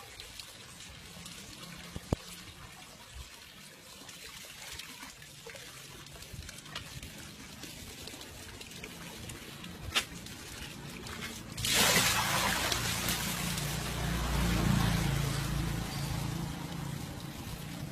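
Running water: a faint trickle with a few small knocks, then a loud rush of water that starts suddenly about twelve seconds in and slowly eases off.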